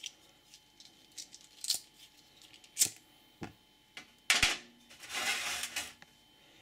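Light clicks and taps of metal on a metal tray, then a sharp click with a thud and about a second of hissing as the small salt-shaker alcohol stove is relit with a lighter.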